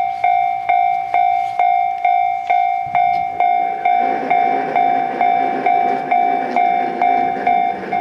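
Railway level-crossing warning bell ringing steadily, about two strikes a second. From about four seconds in, the rumble of a train running past rises under the bell.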